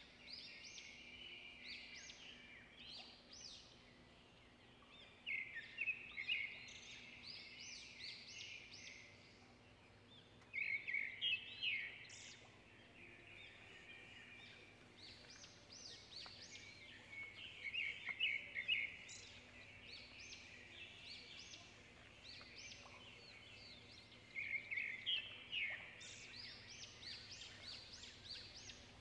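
Birds singing in bouts of quick, high chirps and trills that recur every few seconds.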